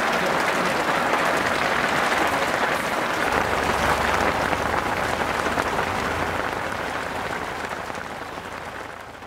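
Heavy rain falling steadily, a dense crackling hiss of drops, with a low rumble underneath for a few seconds around the middle. The rain fades away over the last two seconds.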